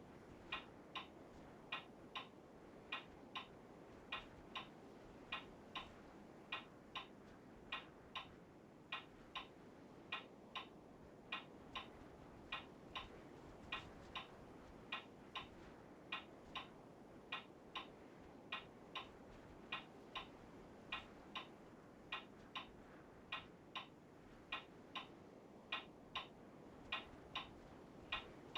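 Steady, even ticking, about three ticks every two seconds, over faint room hiss.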